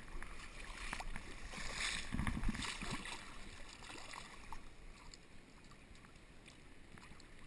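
River water rushing steadily around a drifting boat, with a short burst of splashing and knocks about two seconds in.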